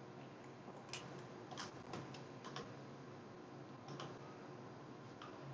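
About half a dozen faint, irregular clicks of a computer mouse and keyboard over a faint steady hum.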